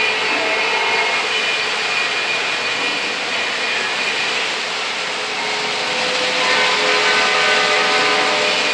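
O gauge model trains running on metal three-rail track: a steady rolling rumble of wheels and motors, with several steady pitched tones joining in about six seconds in.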